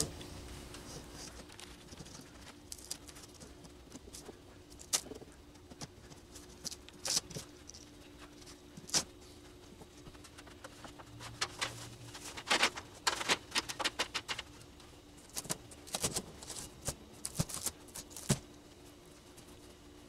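A machete prying and cutting at a thin plywood ceiling sheet: scattered sharp knocks, cracks and scrapes, more frequent in the second half, over a faint steady low hum.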